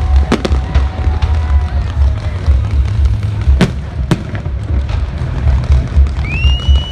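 Fireworks bursting in a few sharp bangs over loud music with a pulsing bass beat. Near the end comes a single high whistle that rises, holds and falls.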